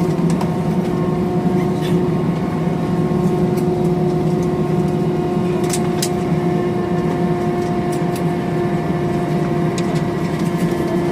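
Steady jet airliner cabin noise inside an Airbus A320 on the ground after landing: a constant hum and hiss with a few held tones, and occasional faint clicks.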